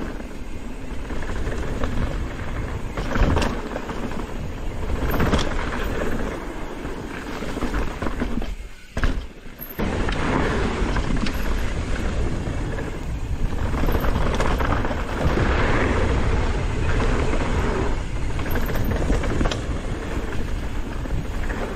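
Wind buffeting the microphone over the rumble and rattle of a downhill mountain bike riding fast over a rough dirt and rock trail, with a few sharp knocks from impacts. The noise drops away for about a second near the middle.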